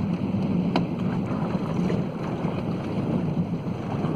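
A fishing boat's engine running with a steady low hum, under wind on the microphone; a single click a little under a second in.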